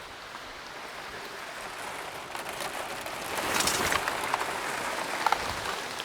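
Rain falling in a sudden downpour, growing louder from about three seconds in, with a few sharp taps of drops.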